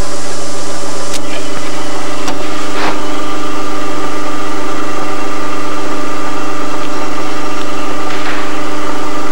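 Drill press motor running with a steady hum while countersinking holes in an aluminium hinge, with a few faint clicks.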